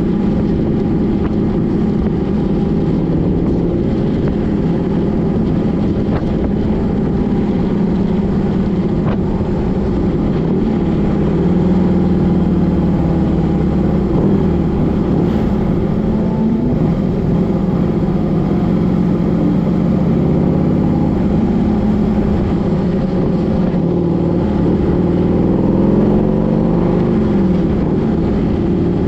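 A vehicle engine running steadily and continuously, with a few small rises in pitch near the end.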